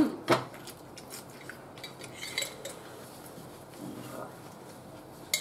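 Close-up eating sounds: chewing and crunching on taco shells, with sharp clinks of cutlery on plates. The loudest knocks come right at the start.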